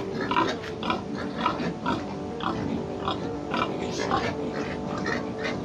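Pigs grunting, a steady string of short calls coming about twice a second.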